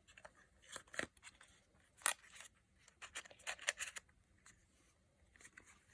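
Handling of cosmetic packaging: short crisp rustles and clicks in several clusters, like products and their packaging being picked up and set down.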